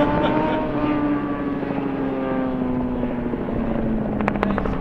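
Robinson R44 helicopter flying low overhead, its six-cylinder piston engine and rotor making a steady drone whose pitch slowly falls. A few sharp clicks come near the end.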